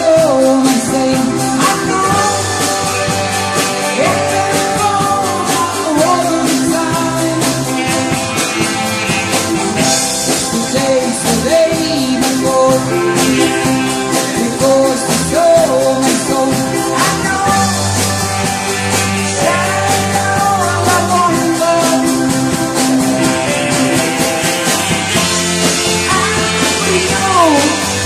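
Dance band playing a song with a lead singer: steady, loud music with sustained chords and a bending vocal melody.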